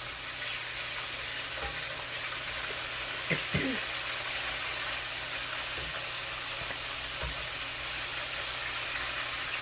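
Pieces of red snapper sizzling in hot frying oil, a steady hiss, with a few light knocks of a utensil against the pan as the fish is turned.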